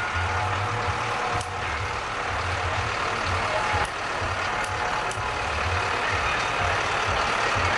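Tractor engine running as it passes close by, a low rumble that swells and eases over general street noise.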